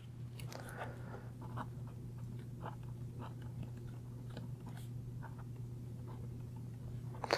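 Pen writing on paper: faint, irregular scratches and ticks over a low steady hum.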